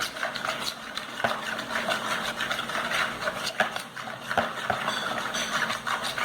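Glue-based slime being stirred in a container with a utensil, which scrapes and clicks against the sides in quick, uneven strokes. A few drops of boric-water activator have just gone in, and the mix has not yet thickened.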